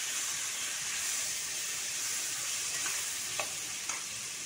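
Freshly added tomato pieces sizzling in hot oil in a frying pan as they are stirred with a spatula: a steady frying hiss, with a couple of light clicks of the spatula against the pan near the end.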